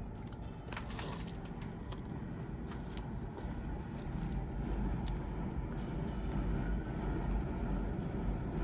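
Metal jewelry clinking lightly as a bracelet is handled: a few short jingles about a second in and again around four to five seconds in, over a steady low rumble that grows a little louder.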